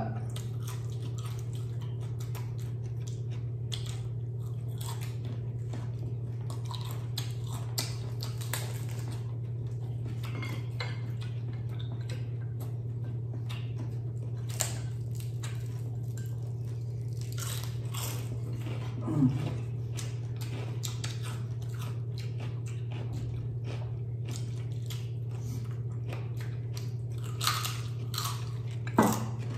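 Close-up crunching and chewing of crispy fried chicken skin, with sharp crackles scattered irregularly through the bites, over a steady low hum.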